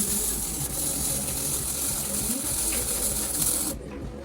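Steady high-pitched hiss of pressurised assist gas blowing through a fibre laser cutting head during a cut, cutting off abruptly near the end, over a low machine hum.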